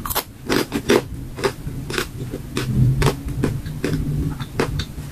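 Crunching of a crisp fried jackfruit chip, bitten and chewed close to the microphone: a dozen or so sharp crunches at an uneven pace.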